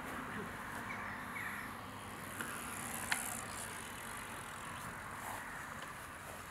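Steady outdoor background noise with a faint low rumble and a few faint chirps, broken by a sharp click about three seconds in.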